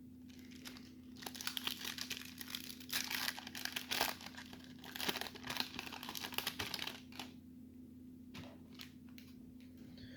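A 1992 Upper Deck baseball card pack being torn open, its wrapper crinkling and tearing for about seven seconds, then a few light clicks as the handling quietens.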